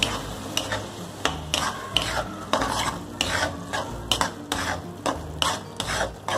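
Long metal spoon scraping and stirring thick misal masala paste around a metal kadhai, about two strokes a second, while the paste fries.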